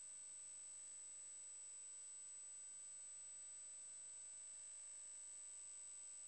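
Near silence: a faint steady hiss with a thin, unchanging high-pitched tone.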